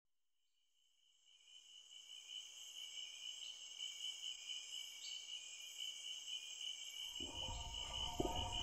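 Crickets chirring in a steady, continuous chorus that fades in over the first second or two. A low rumble with sustained tones comes in about seven seconds in.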